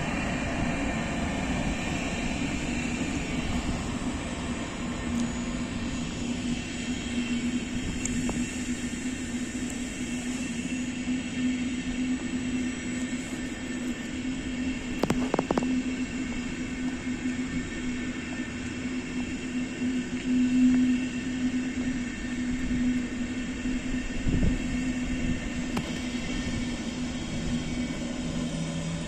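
Electric locomotive-hauled passenger train of coaches rolling past: a steady rumble of wheels on rails with a constant low hum, and a couple of single knocks, one about halfway through and one near the end.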